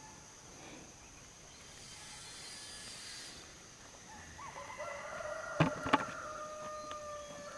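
A rooster crowing once: a long call starting about four seconds in, rising briefly and then held. Two sharp knocks, the loudest sounds, come during the crow.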